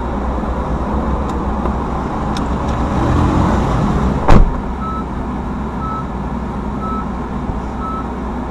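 Road and engine rumble inside a moving car's cabin, with one sharp knock about halfway through, after which an electronic warning chime beeps about once a second.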